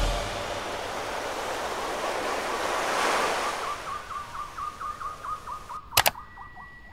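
Editing sound effects: a rush of noise that swells to a peak and dies away, then a quick run of short falling chirps that fade out, and two sharp clicks near the end.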